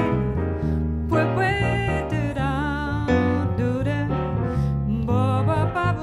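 Live jazz: a woman singing a wordless line over piano and bass.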